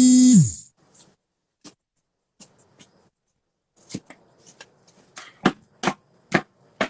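A loud steady held tone for the first half second, then sparse faint clicks, then a run of sharp knocks, about two a second, in the second half.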